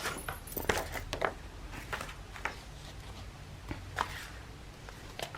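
Paper and craft materials being handled on a work table: a scattering of short rustles and light taps, about eight in all.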